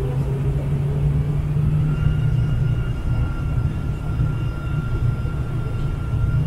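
Boeing 747-400's General Electric turbofan engines running at low taxi power, heard inside the cabin near the wing: a steady low rumble, with a thin engine whine that sets in about two seconds in.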